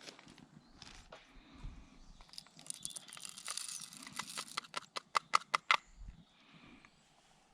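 Rustling and handling noises, then a quick run of about eight sharp clicks or snaps.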